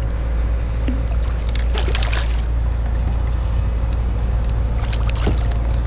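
Water splashing as a hooked jack thrashes at the surface beside a kayak, in two bouts, about two seconds in and again near the end, over a steady low rumble.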